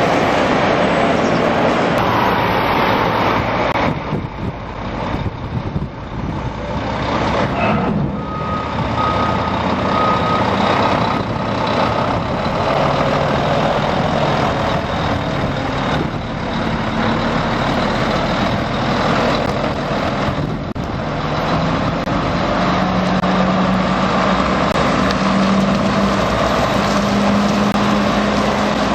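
Heavy trucks' diesel engines running in a yard, with a short run of reversing beeps about eight seconds in. In the last several seconds one engine's note grows stronger and rises slightly as a truck moves off.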